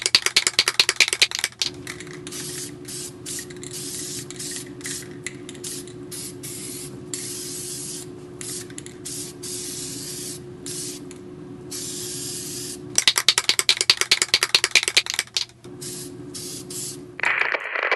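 Aerosol spray-paint can: a rapid rattle of shaking, then stop-start hissing sprays, some short and some a second or more long. About thirteen seconds in it is shaken again, then sprays again. A steady low hum runs under the spraying.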